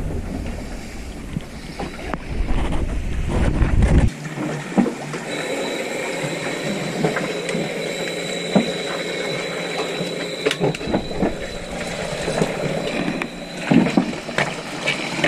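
Shipboard machinery on a commercial fishing boat: a deep rumble that builds and cuts off abruptly about four seconds in, then a steady hum with a thin high whine. Clicks and clunks of gear being handled sound over it.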